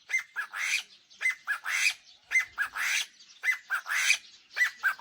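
A bird calling loudly in a repeated phrase about once a second. Each phrase is a couple of short, sharp notes followed by a louder, harsher note. It keeps calling while being stroked.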